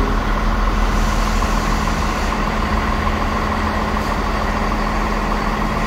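Underfloor diesel engine of a Transport for Wales diesel multiple unit idling at a station platform: a steady drone with a constant low hum and held tones.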